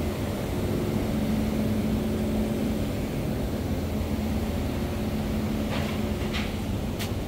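Steady low rumble with a motor-like hum through it, like running machinery or an engine; a few short high clicks or chirps come in near the end.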